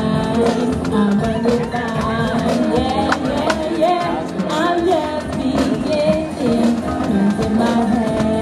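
Live group performance of a song: a choir of voices singing a melody over bass drum and snare drums, with other instruments underneath.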